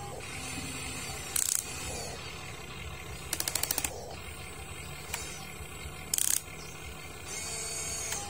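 A Huina RC excavator's electric drive and servo motors running as the boom swings and the arm reaches down to dig into sand, with a steady low hum and short mechanical bursts: one about a second and a half in, a rapid rattle of clicks about three and a half seconds in, and another about six seconds in.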